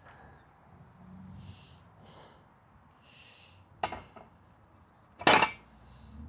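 Seated calf raise machine: a few sharp breaths during the reps, then a click near four seconds and a loud metal clank about five seconds in as the lever is swung and the loaded carriage is locked back onto its stop.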